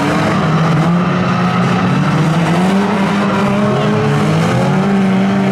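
Several stock-car engines running together at once, their overlapping notes rising and falling as the drivers work the throttle.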